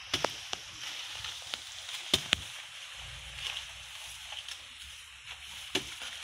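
Footsteps pushing through tall grass and dry banana leaves: rustling, with several sharp cracks of dry stalks and leaves snapping underfoot, the loudest just after two seconds in.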